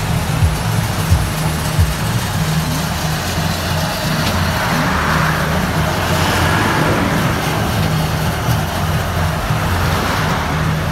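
Road and traffic noise heard from a moving vehicle driving alongside a long flatbed trailer truck: a steady rush of tyres and engines that swells about halfway through.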